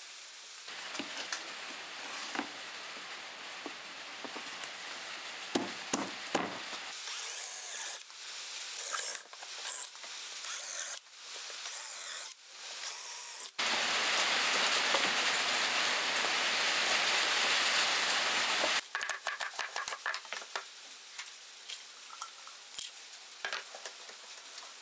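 Woodshop work on a pine board: scattered knocks and handling clicks, then a cordless drill boring a dowel hole into the board's edge for about five seconds as a steady hiss that cuts off abruptly, followed by a run of small rapid taps and clicks as the pieces are fitted.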